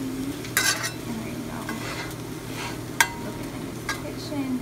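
Pieces of grilled chicken sizzling in a stainless steel frying pan as a fork stirs them, with a few sharp clinks of the fork against the pan, the loudest about three seconds in.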